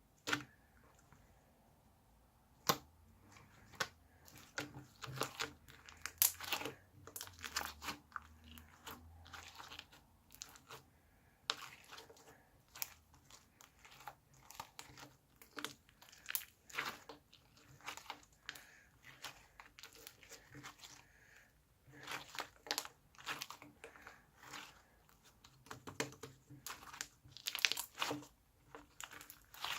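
Pearl-bead slime being squeezed and stretched by hand, giving irregular crunchy crackles and pops.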